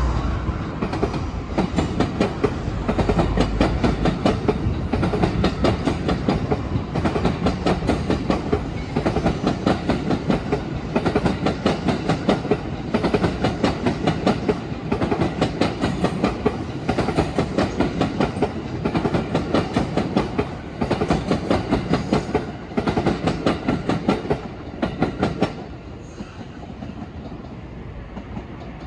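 A long express electric train running through the station tracks, its wheels clicking rapidly over rail joints and points over a steady rumble. The clatter stops about three-quarters of the way through, leaving a lower, quieter rumble.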